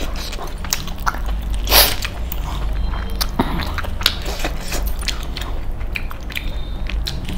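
Close-miked chewing and biting of spicy chicken leg-piece masala eaten by hand: wet mouth clicks and smacks, irregular throughout, with one brief louder rush of noise about two seconds in.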